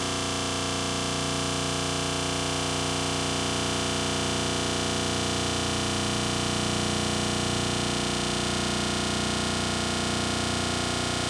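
A dense, steady wall of electronic noise with many held tones layered through it, unchanging throughout: an experimental noise-drone soundtrack.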